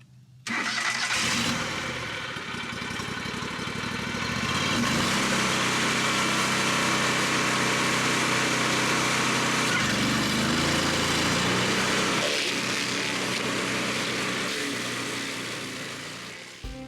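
Bandit SG-40 stump grinder's 38-horsepower Kohler engine running steadily, with its cutter wheel grinding a stump. The sound cuts in abruptly about half a second in and fades out near the end.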